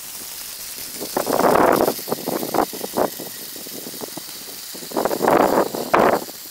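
Water running from a garden hose into a galvanized metal trash can, a steady splashing hiss with louder surges about a second in and again around five seconds in.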